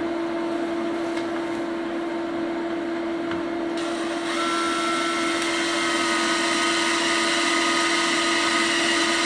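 Cordless drill running with a steady motor whine. About four seconds in, the bit starts cutting into the wall and a harsher grinding noise joins the whine.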